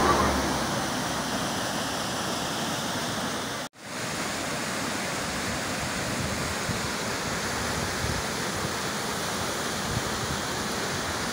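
A fast-flowing river rushing and churning over rocks in rapids, a steady roar of water, cut off by a brief dropout about four seconds in.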